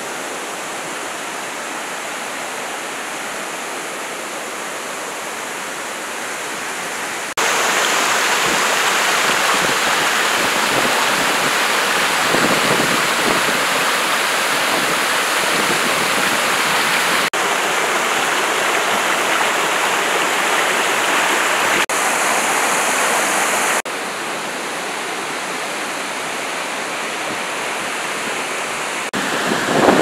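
Waterfall rushing steadily, an even roar of falling water that steps suddenly louder about seven seconds in and drops back down about three quarters of the way through.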